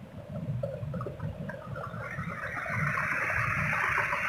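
River water rushing and splashing over rocks, growing louder about halfway in, with a low uneven rumble underneath.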